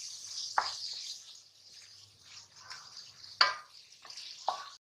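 Chicken and gram flour frying in a pan with a soft sizzle that dies down, and three short scrapes or knocks of a spatula against the pan. The sound cuts off suddenly near the end.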